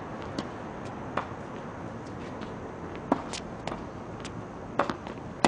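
Tennis balls being struck by rackets and bouncing on a hard court during a rally: a handful of short, sharp knocks at uneven gaps, the louder ones about three seconds in and near the end, over steady outdoor background noise.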